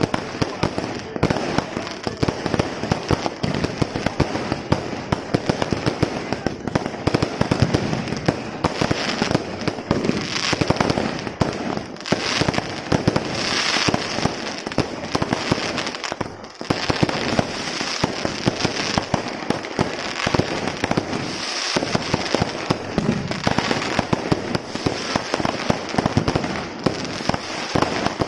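Fireworks display: a dense, continuous run of bangs and crackling from aerial shells and firecrackers, with a brief lull about two-thirds of the way through.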